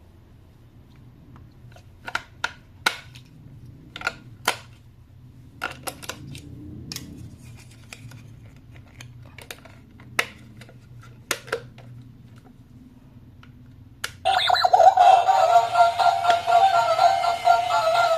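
Toy and plastic packaging being handled, with scattered sharp clicks and knocks. About fourteen seconds in, loud electronic music with synthetic singing starts abruptly.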